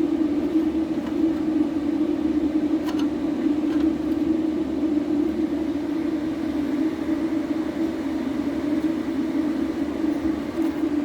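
Small electric gear motors of a hand-built RC Cat D11 bulldozer model running, a steady mid-pitched drone with a few faint clicks about three and four seconds in.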